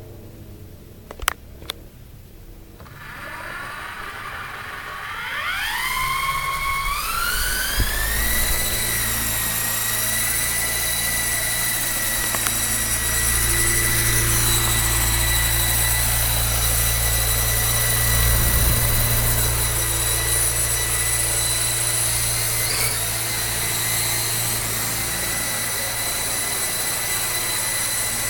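Two sharp clicks, then an Esky KOB electric RC helicopter spooling up: its motor whine rises in steps over about five seconds and settles into a steady high whine over the rotor's low hum as it flies and hovers.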